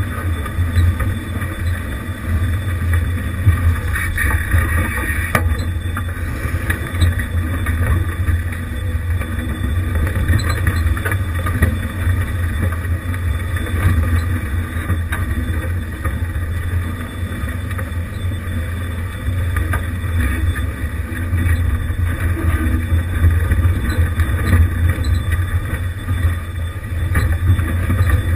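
1988 Jeep Wrangler YJ crawling over a rocky trail: the engine runs with a steady low drone, broken by a few knocks and rattles as the tyres and body go over the rocks.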